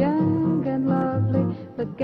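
Background music led by guitar, with a melody line that slides between notes.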